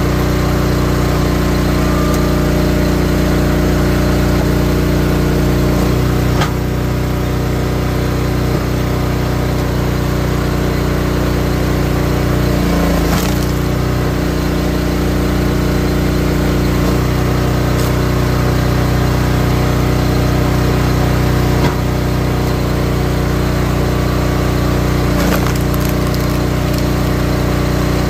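Gas engine of a Wolfe Ridge 28-ton high-output log splitter running steadily while rounds are split, with wood cracking and splitting several times. The engine note changes a few times as the splitter works.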